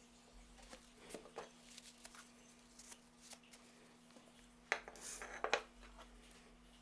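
Light clicks and knocks of small hard objects being handled, with a brief cluster of louder clatter about five seconds in, over a faint steady hum.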